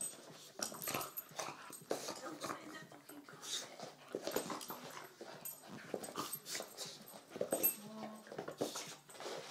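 Spaniel whimpering and yipping in short, irregular bursts.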